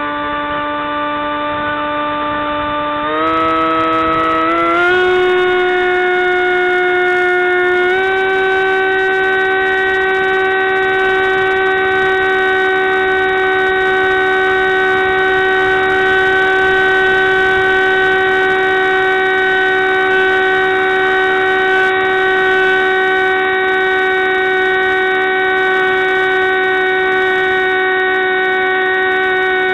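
Radio-controlled model plane's motor and propeller, recorded from a camera on board: a loud, steady whine that steps up in pitch three times in the first eight seconds as the throttle is opened, then holds steady through the climb.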